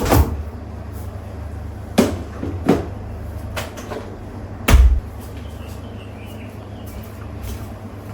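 Refrigerator being loaded and closed: a few sharp knocks and clunks as things are handled, then a heavy thump about five seconds in.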